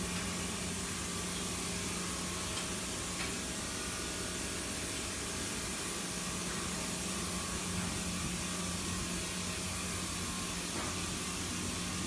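A machine running steadily: a constant low hum with an even hiss over it.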